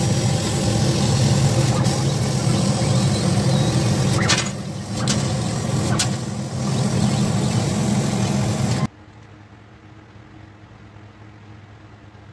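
Laser cutter running as it cuts letters from a wooden sheet: a steady machine hum with hiss, dipping briefly a couple of times. About nine seconds in it cuts off abruptly to quiet room tone.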